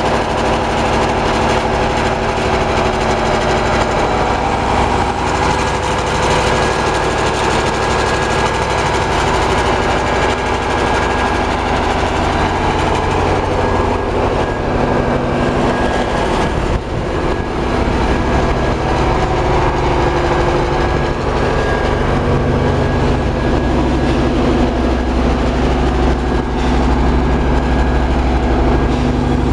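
Large engine-generator set running steadily on biogas, a constant even engine hum.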